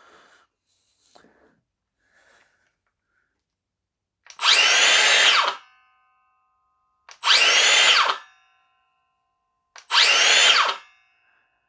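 Makita cordless circular saw run up three times in short bursts, each snapping straight to full speed with no soft start. Each run is cut off quickly by its electric blade brake, leaving a brief ringing whine as the blade stops.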